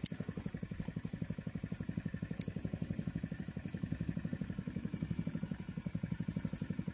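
A small engine idling steadily, with an even putt-putt of about eleven beats a second. There is one sharp click right at the start.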